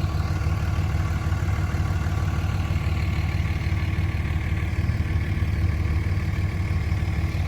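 Engine idling steadily, a continuous low hum with no change in speed.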